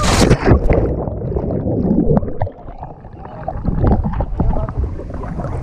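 A person plunging off a water slide into lake water: a loud splash at the start, then muffled churning and gurgling as the camera goes under, and water sloshing and bubbling around it on surfacing.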